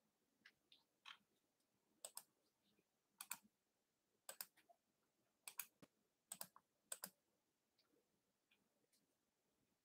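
Faint, sharp clicks in near silence, a few single ones early on and then mostly in quick pairs about once a second.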